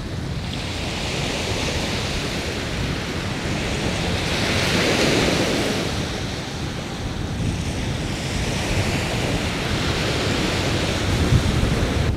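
Small sea waves washing onto the shore, with wind buffeting the microphone in a low rumble; one wave swells up and washes in about five seconds in.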